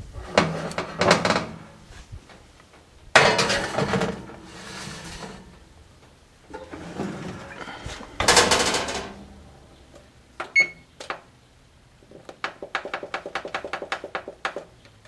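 Baking pan and metal oven rack of a gas range clattering and scraping as the pan goes in and the oven door shuts. About ten seconds in, the electronic control panel gives a short beep. Near the end comes a fast, even run of key beeps as the 29-minute timer is set.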